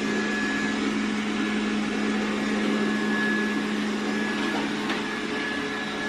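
Xiaomi S10+ robot vacuum running: a steady suction-fan hum with a low drone and a thin high whine, growing slightly fainter in the second half as it drives away.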